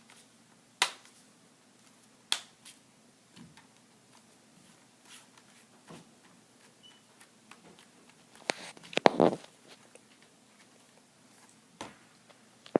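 Plastic laptop screen bezel snapping into its clips as it is pressed into place: sharp clicks, a few spaced out and a quick cluster of several about nine seconds in.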